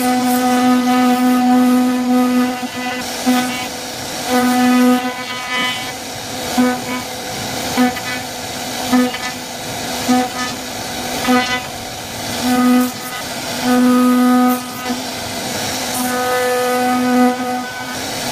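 CNC router spindle carving wood. A steady whine keeps cutting in and out irregularly over a continuous hiss of cutting.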